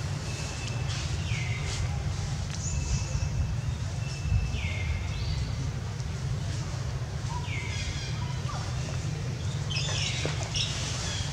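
High-pitched animal calls, each sliding down and then levelling off, repeated about four times a couple of seconds apart, over a steady low rumble.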